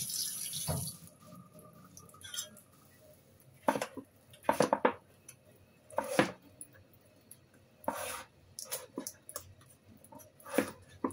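Tap water running for about the first second, then a kitchen knife cutting a raw carrot into chunks on a plastic cutting board: about eight sharp, irregular knocks as the blade goes through and strikes the board.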